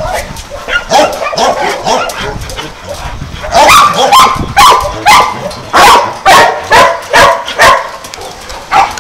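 Dogs barking and yipping during rough play. From about three and a half seconds in there is a steady run of loud barks, about two a second.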